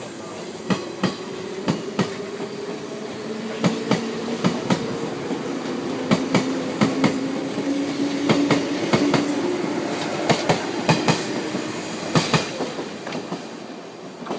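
A JR 189 series electric train pulls out and picks up speed past the listener, its wheels clicking over the rail joints, often in pairs, above a low motor hum that slowly rises in pitch. The sound fades near the end as the last car goes by.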